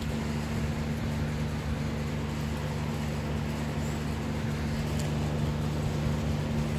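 A steady low hum over an even hiss, holding unchanged throughout.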